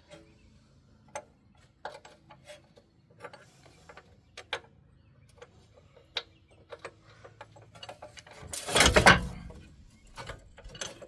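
Scattered clicks and clinks of hub bolts and hand tools being handled, with one louder rasping burst lasting about a second, about eight and a half seconds in.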